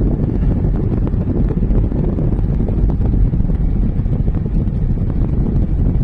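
Steady low rumble of a car driving along a road, heard from inside the cabin, with wind buffeting the microphone.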